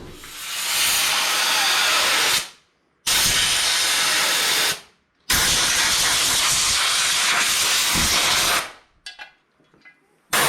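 Compressed air blowing out a freshly vapor-blasted crankcase half: three long hissing blasts of air, each a few seconds, with short pauses between. These are followed by a few short puffs near the end.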